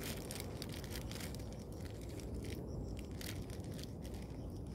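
A fruit-wrapping bag crinkling and rustling in short, irregular crackles as it is wrapped and tied around fruit on the tree, over a low steady background noise.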